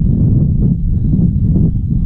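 Wind buffeting the camera's microphone: a loud, gusting low rumble.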